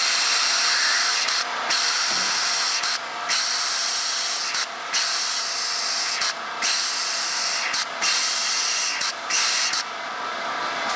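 Pneumatic pull-type rivet gun hissing with compressed air as it is cycled without a rivet. The hiss breaks off briefly about six times and for about a second near the end.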